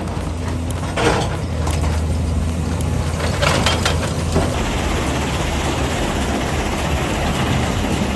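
Heavy diesel machinery running with a low engine drone, with two harsh crunching, scraping strokes in the first half. About four and a half seconds in, the sound changes abruptly to a steadier, broader machine noise.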